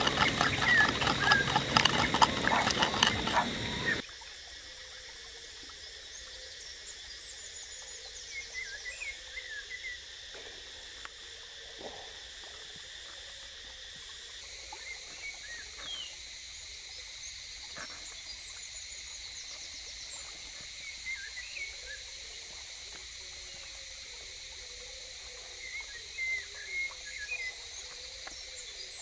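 Pestle pounding chilies and garlic in a mortar, rapid repeated knocks for about the first four seconds. Then it cuts to forest ambience: a steady high drone with scattered bird chirps and an occasional soft knock.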